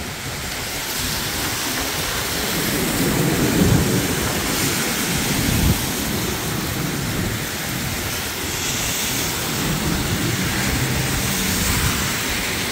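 Heavy rain pouring down, with thunder rumbling a few seconds in.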